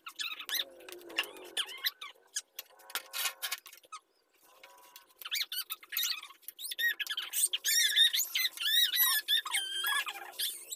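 A chick peeping: short, shrill, repeated high-pitched calls, sparse at first and coming thick and fast in the second half.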